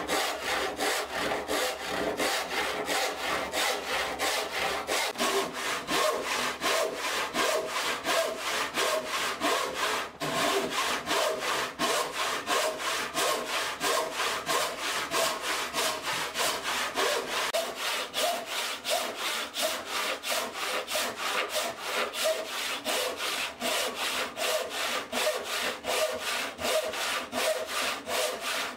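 Handsaw ripping down the grain of a softwood timber clamped in a bench vise, cutting kerfs in the timber's end. The strokes are steady and evenly repeated, with a brief pause about ten seconds in.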